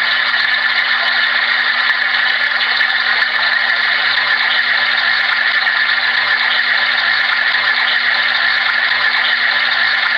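Steady hiss of a Homedics SoundSpa white noise machine on its rain-sound setting, as captured on a voice recorder and played back, with a faint steady hum underneath.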